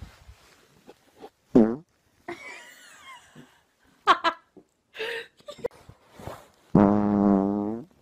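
A long fart lasting about a second near the end, one steady low pitched note that sags slightly as it stops, the loudest sound here. Before it, a woman laughs in short bursts.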